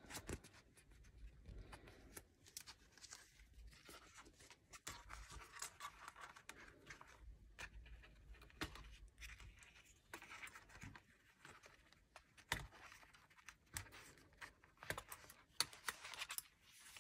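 Faint rustling and scratching of plastic zipper envelopes being handled, with scattered sharp clicks and snaps as the pre-punched holes are broken out and the pockets are fitted onto a six-ring binder's metal rings; the clicks come more often in the last few seconds.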